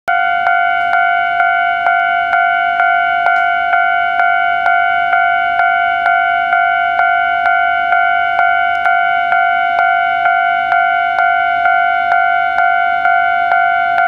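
Japanese railway level-crossing warning bell ringing continuously, a clear clanging strike a little over twice a second, sounding because a train is approaching the crossing.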